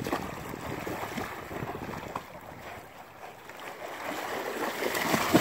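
Dogs splashing through shallow river water, the splashing getting louder near the end as one runs in carrying a stick.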